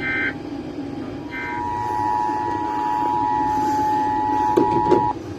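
Emergency Alert System SAME header: the last two of three short buzzy digital data bursts, then the steady two-tone EAS attention signal held for about four seconds and cut off sharply. A couple of clicks come just before the tone ends, over a low steady hum.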